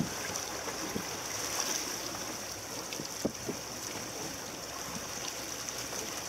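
Sea water rushing and splashing steadily past the hull of a small boat under way, with a couple of light knocks about a second and three seconds in.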